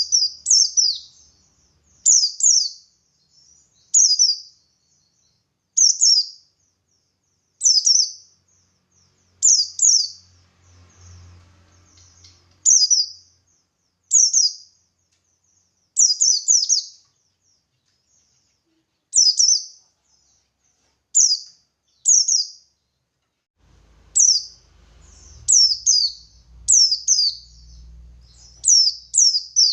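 A pleci buxtoni white-eye sings short, sharp, high chirping phrases, often in quick pairs, about every one to two seconds. The phrases come faster near the end.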